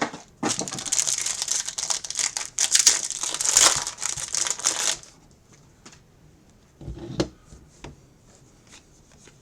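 Packaging on a trading-card box being torn open and crumpled for about four and a half seconds. After it come a few faint clicks and a short knock about seven seconds in, as the box and cards are handled.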